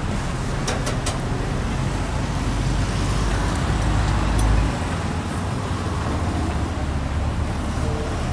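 Street traffic with motor vehicles passing; a low rumble swells to about four and a half seconds in, then drops off as a vehicle goes by. A few light clicks about a second in.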